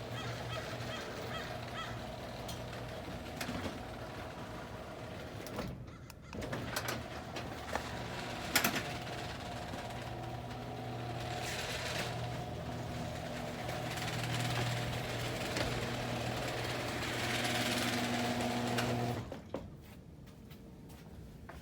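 Garage door opener motor running as the door travels, a steady hum with a brief drop about six seconds in and a sharp click a little later, then stopping suddenly near the end.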